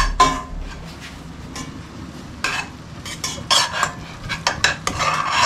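Metal utensil stirring and scraping bacon around a stainless steel saucepan, with irregular clinks against the pan over a light sizzle of frying.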